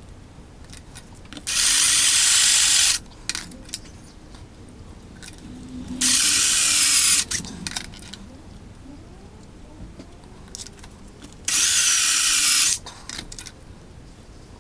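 Power drill turning a step drill bit through sheet metal, run in three short bursts of about a second and a half each, with clicks and handling between them.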